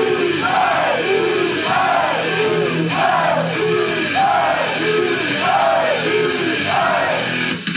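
Loud pop-rock music for a live idol stage performance, with a swooping melodic figure repeating about every three-quarters of a second. The figure breaks off near the end.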